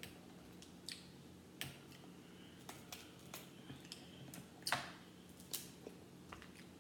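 Crab leg shells being cracked and snapped apart by hand: a run of irregular sharp cracks and clicks, the loudest about two-thirds of the way through.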